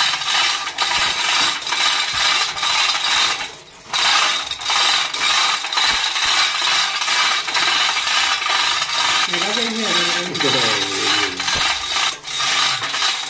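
Hand-operated chain pulley block ratcheting as its chain is hauled, a dense run of metallic clicking and rattling that breaks off for a moment a few seconds in.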